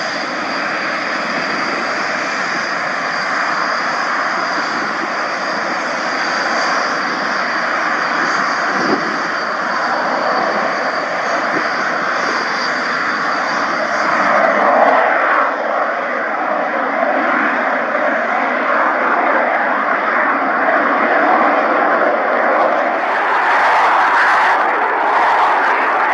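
Aircraft engine running loud, a wide rush with a thin, steady high whine over it, growing louder a little past halfway.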